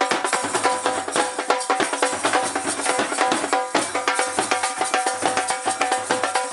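Two dhols, large double-headed barrel drums, beaten in a fast, dense rhythm, with a steady pitched note held above the beat.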